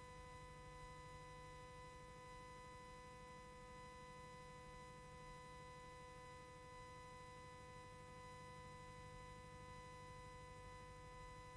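Near silence: a faint, unchanging electrical hum with a few thin steady tones and a little hiss.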